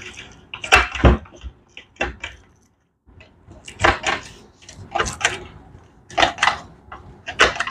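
1971 Moto Guzzi Ambassador gearbox being shifted by hand on the bench: a sharp metallic double clack about once a second, six times, as the selector snaps from gear to gear.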